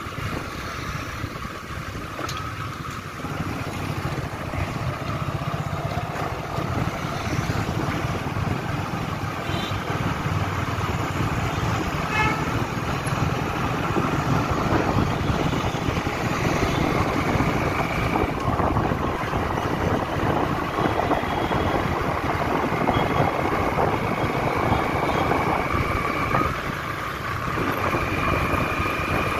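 Two-wheeler engine running under way, with road and wind noise rushing past. The noise grows louder over the first dozen seconds as speed picks up and dips briefly near the end.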